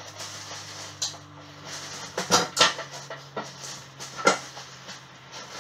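Clear plastic film crinkling and rustling as it is handled and pulled around a nonstick cooker bowl, with a few sharp crackles about a second in, twice near the middle and once more toward the end.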